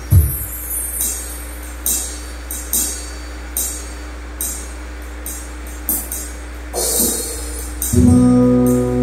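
Live band percussion: short jingly taps, roughly one a second and unevenly spaced, like a tambourine or shaker, over a steady low hum. Near the end, sustained chord notes come in and the music grows louder.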